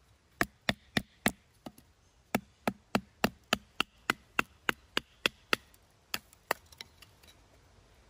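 A piece of firewood used as a baton knocking on the spine of a fixed-blade knife that is driven into a small split of firewood, splitting it into kindling. Sharp wooden knocks come about three a second, with a short pause after the first four, and end in a few lighter taps.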